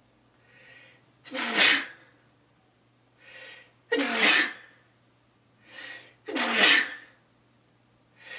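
A person sneezing three times, about two and a half seconds apart, each sneeze preceded by a short, quieter in-breath; another in-breath begins right at the end.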